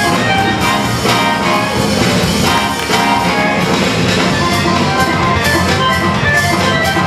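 Music with a steady drum beat, the breakbeat track that the b-boys dance to.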